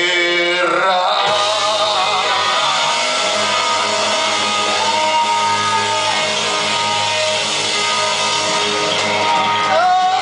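A rock band playing live in a large room: electric guitars and drums with a sung vocal line that breaks off about a second in, followed by the full band, a long held note in the middle and a rising bend near the end.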